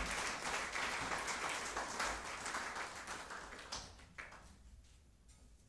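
Audience applauding: dense clapping that dies away about four seconds in.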